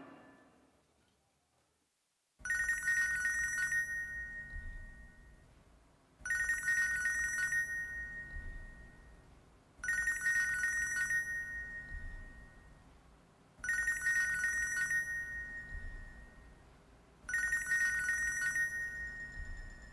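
Nokia mobile phone alarm going off. Starting about two seconds in, a ringtone phrase sounds five times, about every four seconds, each one loud at first and then fading.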